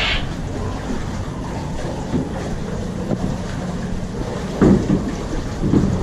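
Steady low rumble and hum of a dark-ride boat gliding through its tunnel, with two dull knocks near the end, about a second apart.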